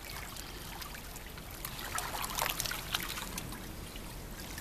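Swimming-pool water splashing and lapping as a baby is drawn through it in an adult's hands: a run of small splashes and drips, busiest in the middle.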